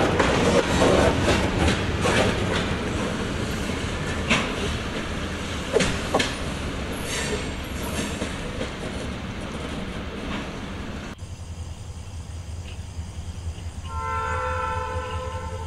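HO scale model freight train rolling past on the track, its wheels clicking over rail joints as the cars go by. About eleven seconds in the sound cuts away to a quieter layout scene, where about three seconds before the end a model diesel locomotive's horn sounds a multi-note chord.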